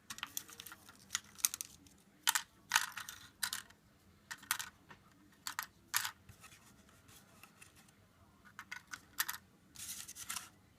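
Handling noise: irregular light clicks, taps and short scratchy rustles as small objects are picked up and moved about.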